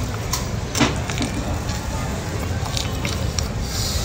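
Close chewing of a soft marshmallow, with scattered short wet mouth clicks and smacks over a steady low background rumble.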